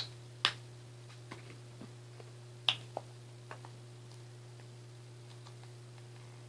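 Sharp clicks and taps from paint supplies being handled at a paper-plate palette: four louder clicks in the first three seconds and a few fainter ones, over a steady low hum.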